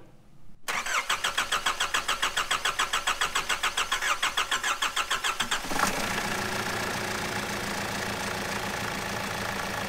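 Nissan ZD30 four-cylinder turbo-diesel being cranked over by its starter motor in rapid, even pulses. It is the first start after the injectors and fuel lines were refitted, with the lines not yet primed. About six seconds in, the engine catches and settles into a steady idle.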